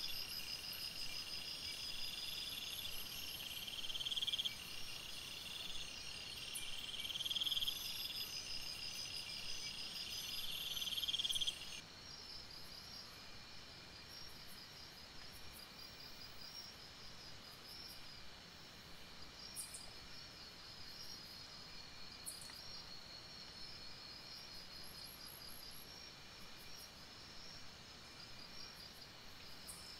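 Chorus of insects chirping and trilling. A louder pulsing call swells in repeated phrases over the first twelve seconds and then stops abruptly, leaving fainter steady chirping.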